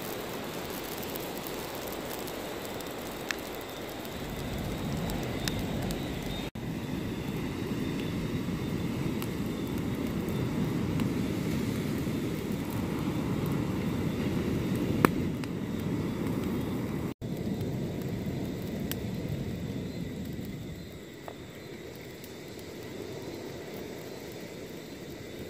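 Campfire of dry palm fronds and branches burning: a low, steady rush that swells about four seconds in and eases off near the end, with a couple of sharp crackling pops, the loudest about fifteen seconds in.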